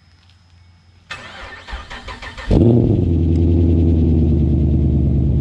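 Holden VL Commodore engine cranked over by the starter for about a second and a half, catching with a brief rev and settling into a steady idle.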